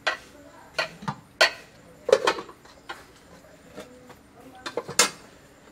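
Scattered clinks and knocks of stainless steel plates, pot lids and a serving spoon during a meal, about a dozen, some with a short metallic ring, loudest about two seconds in and near the end.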